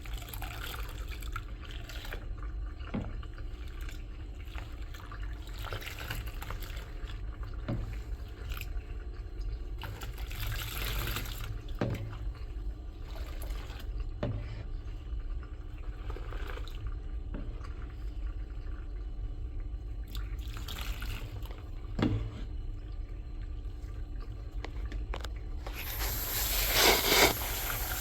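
Bathwater draining out of the tub, with a steady low gurgle and a few small knocks and splashes. Near the end a tap comes on and water starts running.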